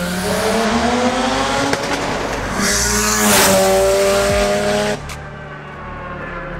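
Street-ported twin-rotor rotary engine of a single-turbo 1993 Mazda RX-7 FD3S accelerating in two pulls, rising in pitch each time. The second pull cuts off suddenly about five seconds in.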